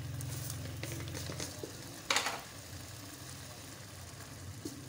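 Mutton and tomato-onion masala frying in a steel pot, a soft steady sizzle, with a brief louder hiss about two seconds in.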